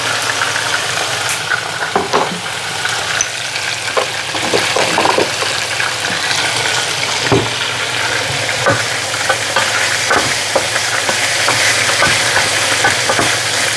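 Chunks of chicken sizzling as they fry in a pan, with a steady hiss. The pieces are stirred, giving frequent short scrapes and knocks of the utensil against the pan.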